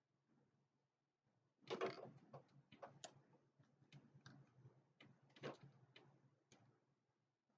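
Scattered light clicks and rustles of hands working on plastic headlight parts and connectors, starting a couple of seconds in, with a faint steady low hum underneath.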